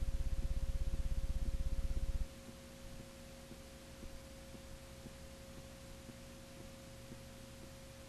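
Dead air on an old videotape recording: a steady mid-pitched tone over a low electrical buzz with a fast pulsing beat. The buzz drops sharply about two seconds in, leaving the tone over faint hum.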